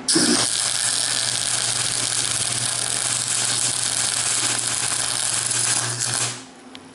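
Thermal Arc MIG welder arc crackling steadily as a bead is run with a forward-and-back whipping motion, with a steady low hum underneath. It starts abruptly and stops a little after six seconds in.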